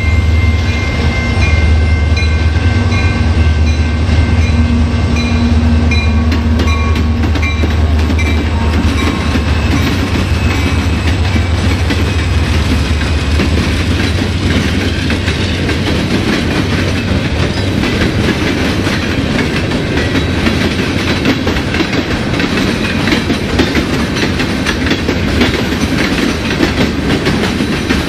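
BNSF freight train passing close by. For the first eight seconds or so there is a low diesel drone with a steady whine, which fades. Then comes a continuous rumble and clatter of freight car wheels rolling over the rail joints.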